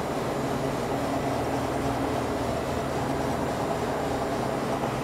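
Steady mechanical hum of running refrigeration equipment: an even drone with several low steady tones and no breaks or changes.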